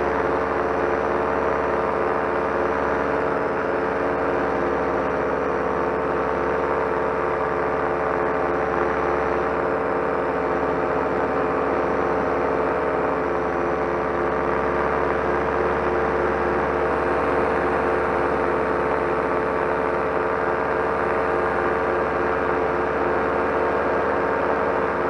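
Solo 210 single-cylinder two-stroke paramotor engine and propeller running steadily in flight, holding an even throttle with no change in pitch.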